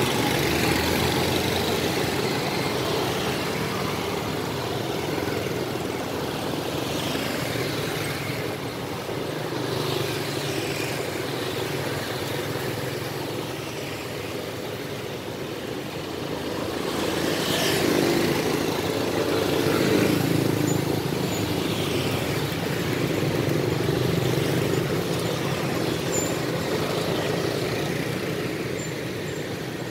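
Street traffic noise: engines of motor vehicles running and passing by, swelling twice as vehicles pass close in the middle of the stretch.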